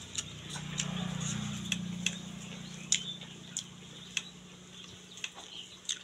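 Eating by hand: sharp, irregular wet clicks of chewing and lip-smacking, about ten of them, with a low steady hum during the first two and a half seconds.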